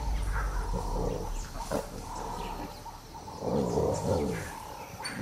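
Spotted hyena and African wild dogs fighting at close quarters: a run of irregular growls and snarling calls, loudest about three and a half to four seconds in, with short high calls in between.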